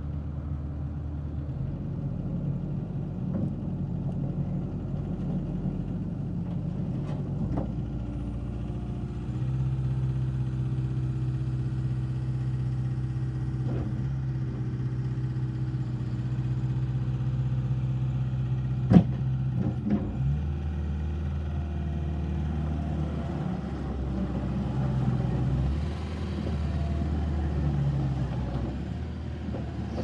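Kubota SVL90-2 compact track loader's four-cylinder turbo-diesel engine running steadily while the machine works its lift arms. The engine speeds up about ten seconds in and drops back about twenty seconds in. A single sharp knock comes just before it drops back.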